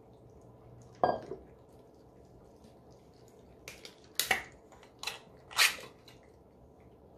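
A plastic spoon clicks and scrapes against a plastic cup as wet cat food is scooped out for hand-feeding. There is a sharp knock about a second in and a quick run of clicks in the second half. Under them, cats faintly lick and chew wet food at their bowls.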